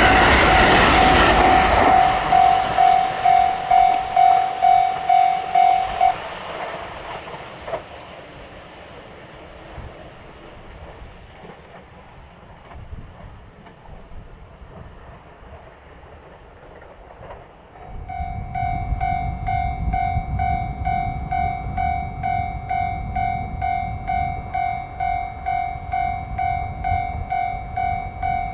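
A train running past over the rails, fading away in the first few seconds, with a Japanese level-crossing warning bell ringing its electronic clang at about two strikes a second. The bell stops about six seconds in. About eighteen seconds in the crossing bell starts again and the low rumble of an approaching train builds.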